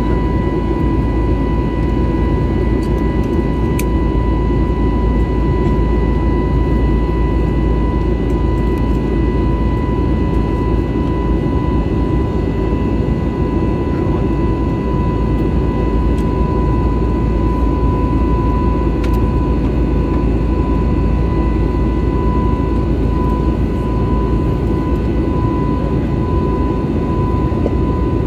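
Airbus A320neo cabin noise from a window seat beside the engine: a steady, unchanging rumble of jet engine and airflow, with a steady high whine over it.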